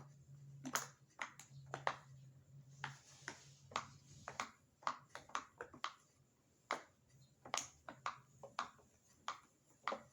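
Bubbles of a silicone pop-it fidget toy being pressed one after another: a string of small, sharp pops at an uneven pace of about two or three a second.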